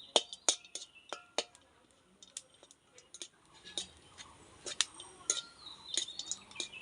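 Metal spoon or spatula clinking and scraping against a metal cooking pan while stirring: a quick run of sharp ringing clinks, fainter scraping in the middle, then more clinks after about four seconds.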